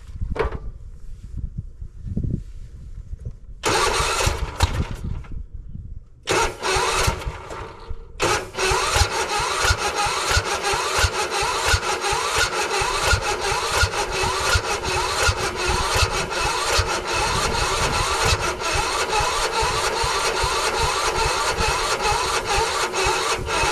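Weedeater lawn tractor's engine being cranked over by its electric starter on starting fluid, first in short bursts and then in one long steady crank from about eight seconds in, with a fast even chugging. It does not catch and run.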